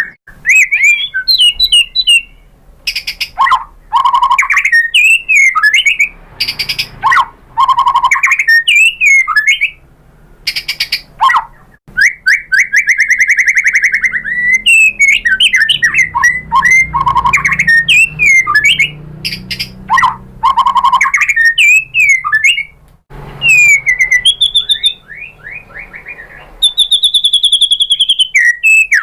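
White-rumped shama singing a long, varied song: loud whistled phrases, slurred notes and fast rattling trills, one phrase after another with short pauses between.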